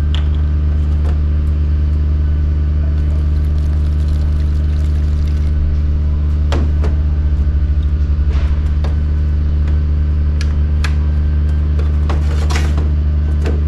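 A loud, steady low machine hum, with a few sharp clicks and knocks of small containers being handled about halfway through and near the end.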